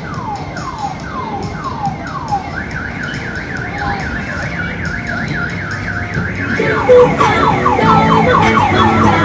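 Electronic siren sound cycling through its patterns: a falling whoop repeated about twice a second, then a fast warble from about two and a half seconds in, then a louder, choppier chirping pattern near the end.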